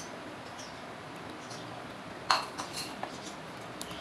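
A steel ladle stirring milk in a bowl, clinking against the bowl's side: one sharp clink a little past halfway, then a few lighter taps.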